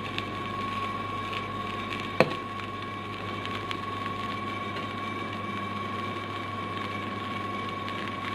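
A steady high-pitched hum runs throughout. A metal spoon clinks sharply once against the cooking pot about two seconds in, with a few faint scrapes and ticks of rice being turned.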